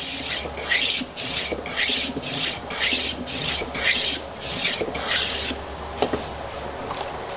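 Small hand plane taking quick repeated strokes along a thin square wooden strip, shaving off its corners to rough it toward an octagonal dowel blank: a rhythmic shaving hiss at about two strokes a second that stops about five and a half seconds in, followed by a couple of light clicks.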